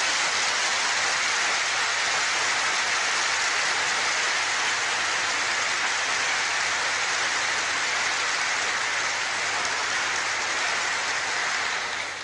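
Large audience in a hall applauding steadily after a speaker's slogan; the clapping dies away near the end.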